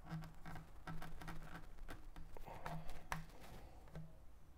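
Faint, irregular clicks and scrapes of pliers gripping and twisting the plastic end piece of a rolled-up car sunshade, working it loose.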